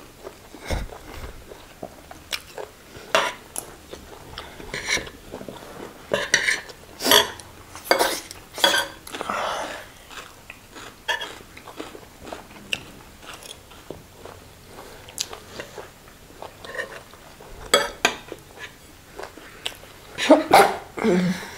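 Close-miked chewing and mouth noises of two people eating jollof rice with beef and avocado, with metal forks and spoons clicking against the plates at irregular moments.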